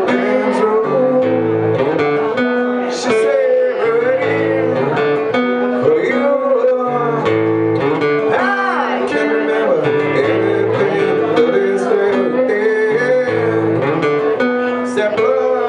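Acoustic guitar played in a repeating chord pattern, with a voice singing over it.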